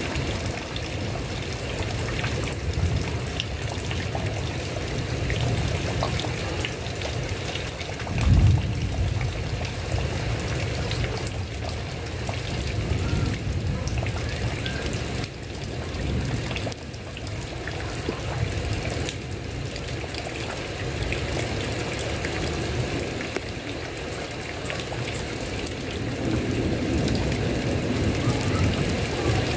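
Steady rain falling on a tile roof, with one brief low thump about eight seconds in that is the loudest moment.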